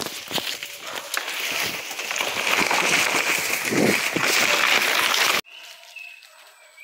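Rustling and brushing of leaves and branches against the camera and microphone, with scattered knocks, as someone runs through forest undergrowth. About five seconds in it cuts off suddenly to quiet forest background with a few faint whistling calls.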